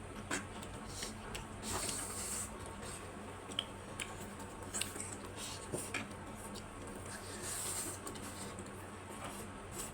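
Close-up mouth sounds of people eating spicy noodles: wet chewing and smacking with scattered small clicks, and two short hisses, about two seconds in and near the end.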